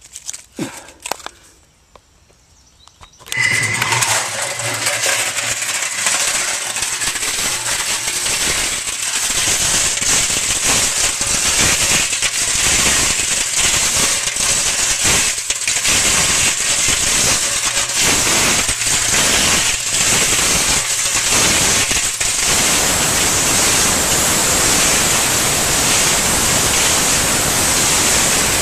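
Steel cement mixer drum tumbling heavy pieces of burnt copper, a dense, loud rattling and banging that starts suddenly about three seconds in after a few softer knocks. The tumbling is beating the burnt varnish and insulation off the copper to clean it.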